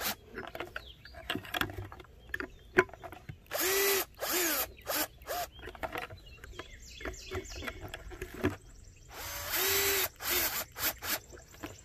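Cordless drill/driver running screw-in plastic chicken-waterer nipples into a plastic bucket, with its torque set light: two short runs of about a second, near four seconds in and again near ten seconds, each rising in pitch as the motor spins up. Scattered clicks and knocks come between the runs.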